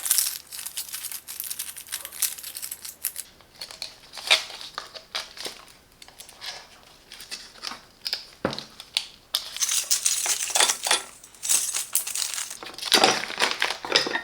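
Hand tools and their plastic packaging being handled: irregular crinkling and rustling with small metal clicks and clinks.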